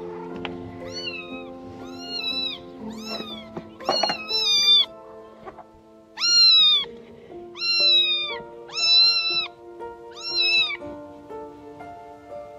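A cat meowing over and over, about eight short, high meows that drop in pitch at the end. The later meows are the loudest. Background music plays underneath.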